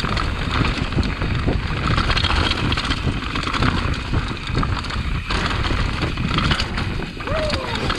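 Mountain bike being ridden over a rough dirt trail: a steady rumble of wind and tyres with frequent clatters of the bike over rocks and bumps. A brief falling squeal comes near the end.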